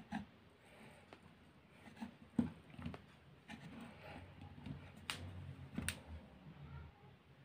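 Faint metal clicks and scrapes of a screwdriver tip prying a small part out of a vacuum cleaner motor's housing. There are a few sharper clicks near the end.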